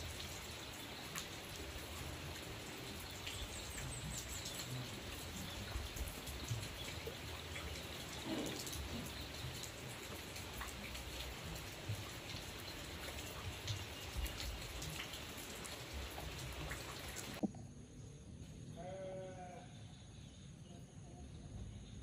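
Steady rain falling on leaves, with scattered louder drops. About three-quarters of the way through it cuts off abruptly to a much quieter background, where a brief wavering animal call is heard.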